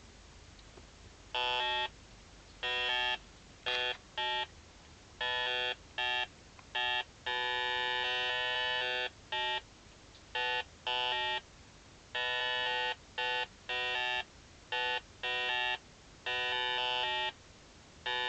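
The flicker generator inside an electronic LED candle played as audio: a square-wave tone of one fixed pitch, rich in overtones, that switches on and off irregularly in bursts from a fraction of a second to about two seconds long. The uneven on-off pattern is the generator's changing pulse-pause ratio, which makes the LED flicker.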